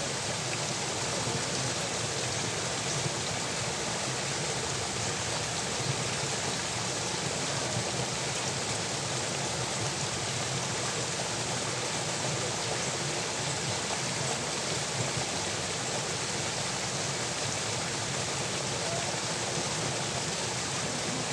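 Water in an irrigation channel flowing steadily out from a culvert under a small bridge, an even, unbroken rushing noise.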